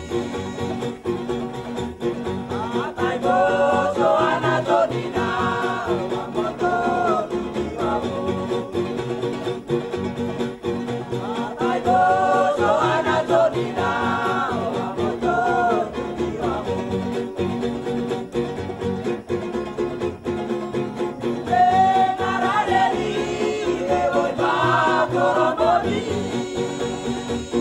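Background music: a song with a voice singing in phrases over steady instrumental accompaniment.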